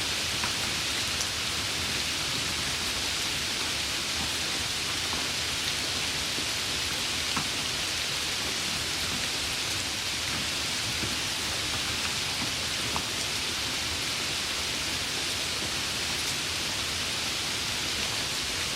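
Steady rain falling, an even hiss with a few single drops ticking now and then.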